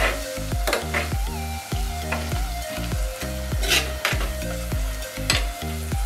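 A metal spoon stirring and scraping through coconut slivers and aromatics frying in oil in an earthenware clay pot, with a sizzle and several short scrapes against the pot's wall. Background music with a steady beat plays underneath.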